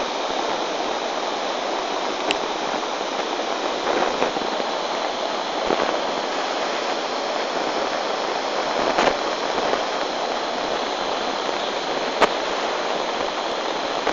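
A river in flood rushing past in a steady, heavy noise of churning water, with a few sharp knocks through it.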